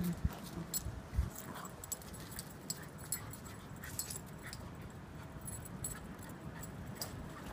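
Puppies playing on paving: a few brief whimpers, with many light clicks and jingles from claws and collar tags as they scuffle and trot.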